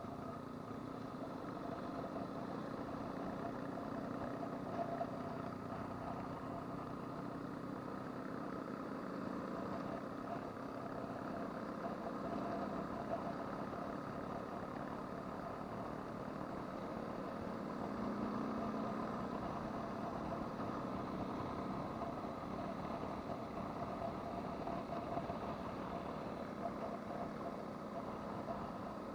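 Adventure motorcycle engine running steadily at a constant cruising speed of about 50 km/h, heard from a camera mounted on the bike, over a steady rush of wind and road noise.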